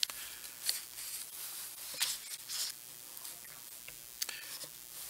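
A handful of faint, brief rustles and clicks over quiet room tone, as of something being handled close to the microphone.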